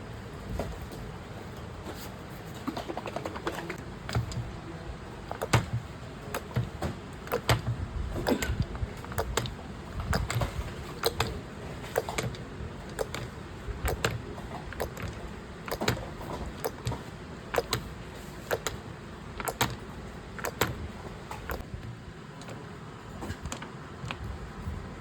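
Irregular sharp clicks and clinks of small hard objects being handled, several a second at times, over a steady low machine hum.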